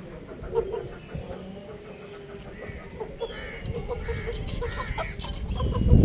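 Chickens clucking softly while pecking at the soil in a clay pot, with many short sharp taps. A few higher-pitched calls come in the second half, and a low rumble swells near the end.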